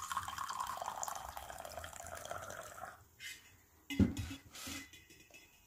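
Tea poured from a plastic teapot into a ceramic mug: a steady stream of liquid that stops about three seconds in. About four seconds in comes a sharp knock on the table, the loudest sound, followed by a few softer knocks.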